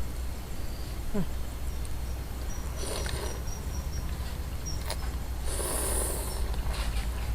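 Close-up eating noises: a few short noisy bursts of mouth sounds, the longest about two-thirds of the way through, over a steady low hum.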